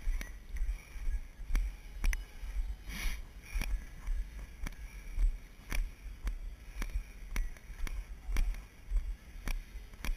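Footfalls of the camera wearer on a dirt and gravel trail, steady at about two steps a second, each step a sharp knock from the body-mounted camera, over a low buffeting rumble on the microphone.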